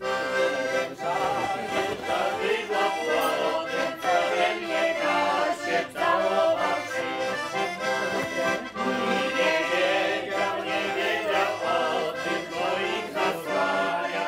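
Piano accordion playing a tune, starting abruptly and running on without a break.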